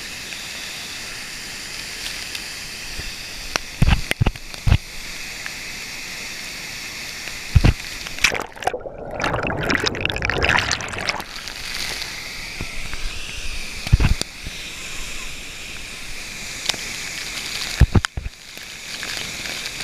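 Steady rush of water from a waterfall or stream, with a few sharp knocks and a louder, rougher stretch of sloshing water partway through.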